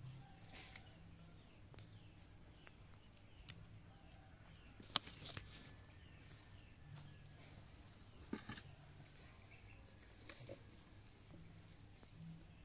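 Quiet handling noises: soft rustles and a few sharp clicks as a baby monkey grabs and tugs at a leafy stem on a blanket, the loudest click about five seconds in. Faint bird chirps behind.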